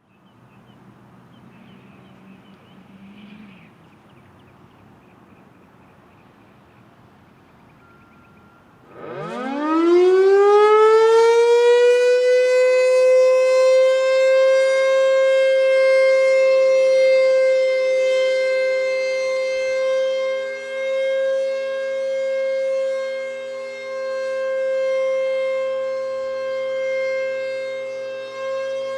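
1950s Federal Sign & Signal Thunderbolt 1000 air raid siren starting up: after a few seconds of faint background noise, it winds up about nine seconds in, its pitch rising steeply over a few seconds, then holds a loud steady tone whose loudness swells and dips slowly.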